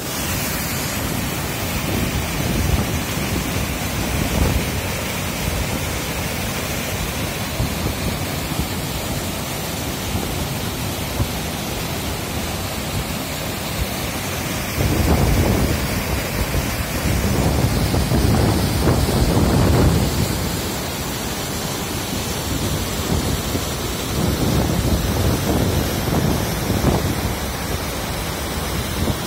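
Waterfall pouring down a rocky gorge: a loud, steady rush of falling water, with irregular low buffeting from about halfway through.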